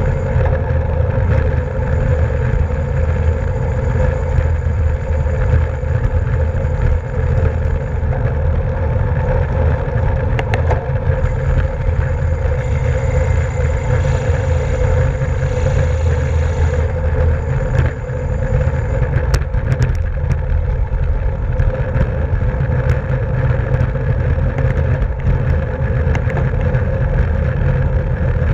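Wind rushing over the microphone of a camera riding along in a bicycle race: a steady, heavy low rumble with a steady hum above it.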